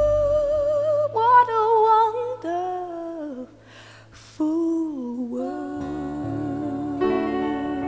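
Background music: a wordless hummed or sung melody with vibrato on long held notes, breaking off briefly about halfway, then fuller instrumental chords near the end.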